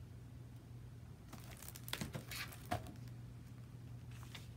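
Paper pages of a picture book rustling and crinkling as the book is handled and a page is turned, a few soft rustles and taps between about one and three seconds in, over a low steady hum.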